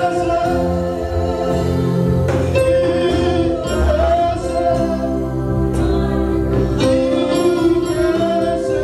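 Live gospel worship music: a group of singers on microphones with a band, held chords over a steady bass line.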